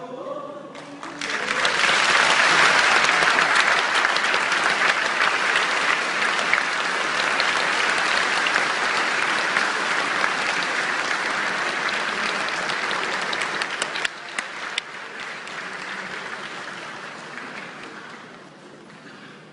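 Large crowd applauding. The clapping swells in about a second in, stays loud and steady, then thins out and dies away over the last few seconds.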